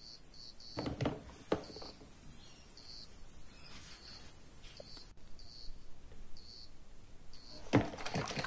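Faint cricket-like chirps repeating about twice a second, with a few soft knocks and, near the end, soft splashes of a hand moving in soapy water.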